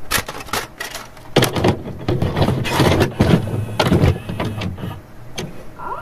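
Video-glitch and static sound effects: a string of irregular crackling bursts and clicks, with a short rising whine near the end.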